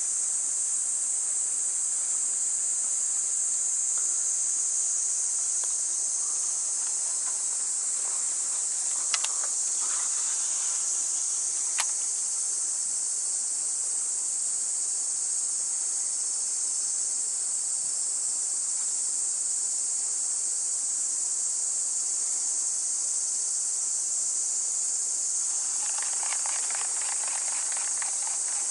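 Summer insects, most likely cicadas, in a steady high-pitched chorus. Two sharp clicks come about nine and twelve seconds in, and a nearer, lower pulsing buzz swells briefly near the end.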